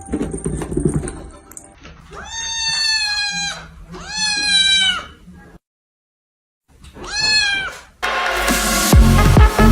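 A domestic cat meowing three times, long drawn-out meows that rise at the start and then hold. Loud electronic dance music starts near the end.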